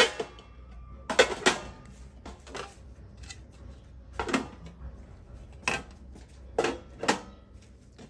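Pans and lids of an electric buffet serving set being handled and set in place: a string of irregular sharp knocks and clinks, about ten of them.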